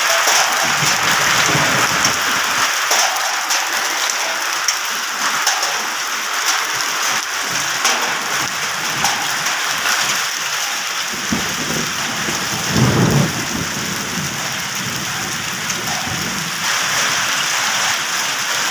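Hail and heavy rain pelting a concrete rooftop: a dense, steady patter of countless small hits. A brief low rumble comes about two-thirds of the way in.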